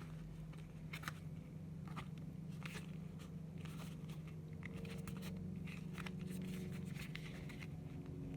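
Scattered soft crinkles, rustles and small clicks of a new leather wallet and its packaging being handled and opened, over a steady low hum.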